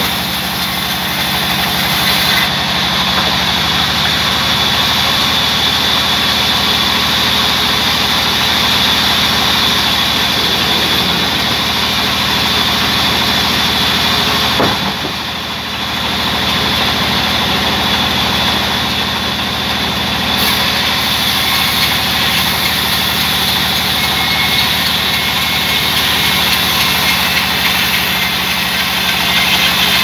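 A belt-driven band sawmill running steadily: a low hum with a high whine over it, dipping briefly about halfway through.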